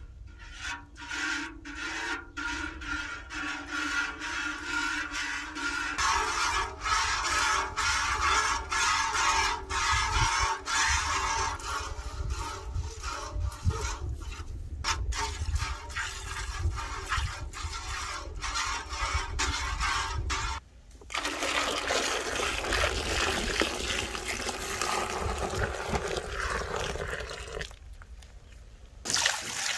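A cow being milked by hand into a galvanized metal pail: rhythmic squirts of milk, about one or two a second, each a short hiss into the foaming milk, then a steadier hissing stream.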